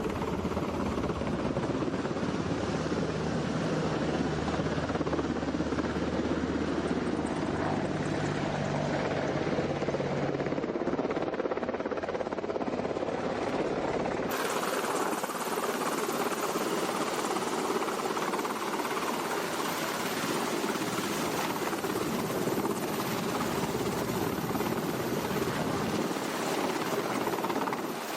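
Helicopter running, its rotor and engine noise continuous and steady; the sound changes abruptly about halfway through.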